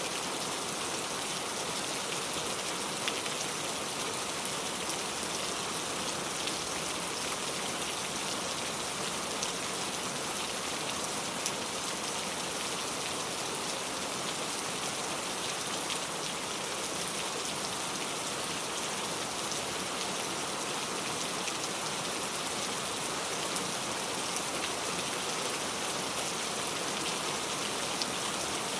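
Steady rain falling, with scattered louder drops ticking on a surface.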